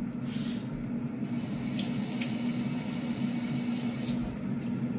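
Kitchen tap running steadily into a sink, over a steady low hum.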